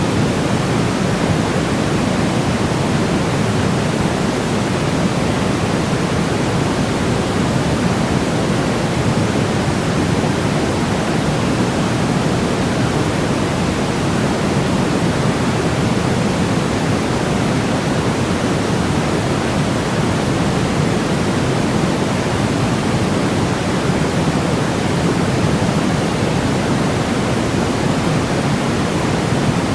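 Steady electronically generated noise of the kind played as white noise for baby sleep, an even, unchanging rush with its weight in the lower range and thinning toward the top, closer to pink noise than to flat white noise.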